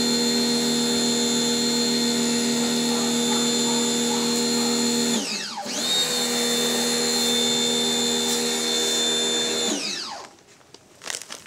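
Electric pressure washer motor running with a steady whine. It winds down and cuts out about five seconds in, starts again with a rising whine half a second later, and winds down to a stop near the end.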